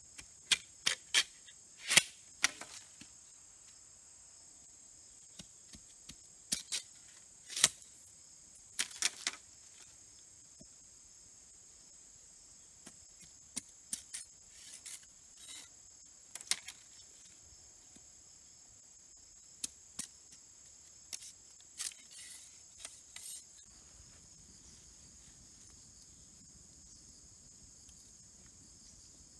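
Crickets chirring as a steady high-pitched chorus, with irregular sharp clicks and knocks in small clusters over it that stop about three-quarters of the way through.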